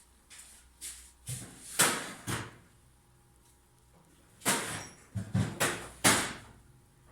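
Workshop handling knocks and clatter: a handful of sharp knocks around two seconds in, a quiet pause, then a cluster of louder knocks in the second half, as tools and engine parts are set down and handled during engine assembly.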